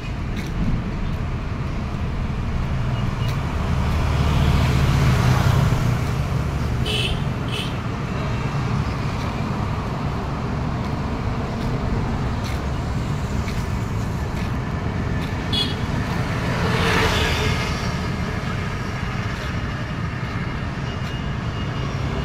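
Road traffic going by: a steady low rumble, with a vehicle passing loudly twice, a few seconds in and again about two-thirds of the way through, and a couple of short high beeps in between.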